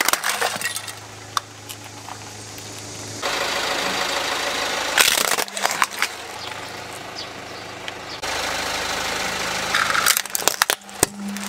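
Plastic toys cracking and snapping as they are crushed under a slowly rolling car tyre, in bursts near the start, about halfway through, and again near the end. The car's idling engine hums steadily underneath.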